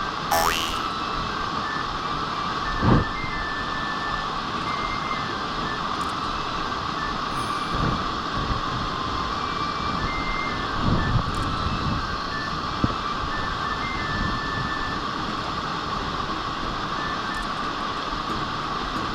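Mountain stream rushing steadily, with short high-pitched notes repeating irregularly over the water and a few dull thumps, the loudest about three seconds in.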